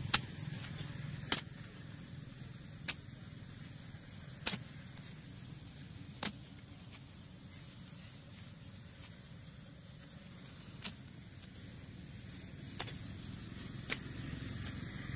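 A red-handled digging tool striking and chopping into hard soil at a frog's burrow: about eight sharp strokes at irregular intervals, a few seconds apart at most. A steady low rumble runs underneath.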